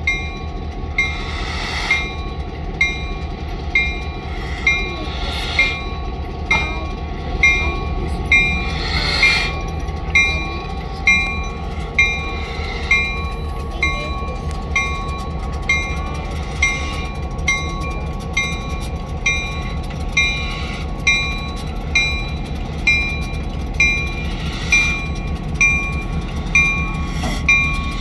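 Locomotive bell ringing steadily about once a second over the low rumble and wheel noise of a slow-moving train hauling N&W steam locomotive 611 and its tender.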